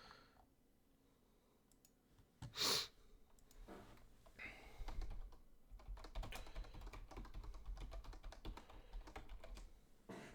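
Typing on a computer keyboard: a quick run of light key clicks from about four seconds in, after one short rush of noise a little before three seconds in.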